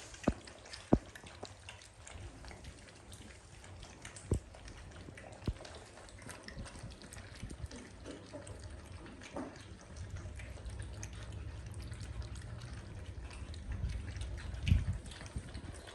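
Puppies lapping milk from a bowl: wet, irregular lapping with scattered sharp clicks, and a low rumble that builds from about ten seconds in.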